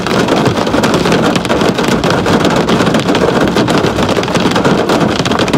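Loud steady rushing noise with a constant fine crackle, heard inside a car cabin.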